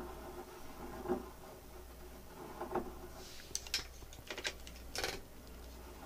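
Light clicks and taps from a hand-cranked pull-test rig as tension is wound onto a crimped wire hooked to a hanging force gauge. There are a few soft knocks in the first three seconds, then a quicker cluster of sharp clicks over a faint steady hum.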